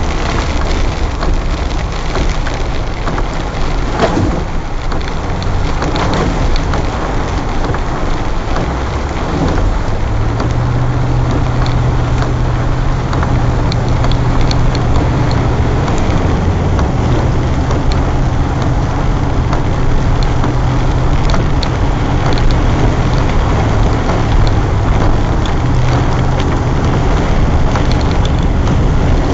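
Land Rover driving through a flooded road: a steady rush of water and spray, with the low drone of its engine coming through clearly from about ten seconds in.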